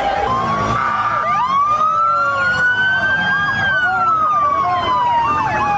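Emergency vehicle siren wailing: the pitch climbs slowly for about three seconds, then slides down. Underneath it a second, faster siren pattern rises and falls several times a second.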